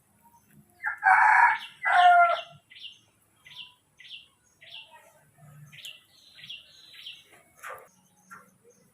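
Animal calls: two loud, pitched calls about a second apart, followed by a series of short, high, falling chirps about twice a second.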